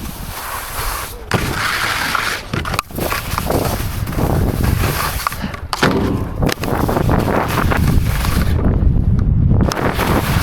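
Snowboard sliding and scraping over snow, with wind rushing on the helmet-camera microphone and a few sharp knocks from the board.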